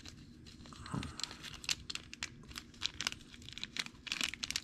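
Clear plastic bag around a slot car body crinkling as it is handled, with many irregular sharp crackles that grow thicker near the end.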